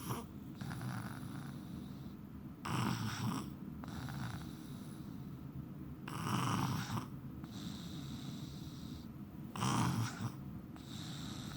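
Snoring in a steady rhythm, with a loud snore about every three seconds and quieter breathing noise between them.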